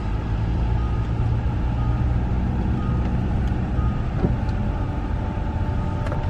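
Steady low rumble of a car's engine and road noise heard inside the cabin while driving.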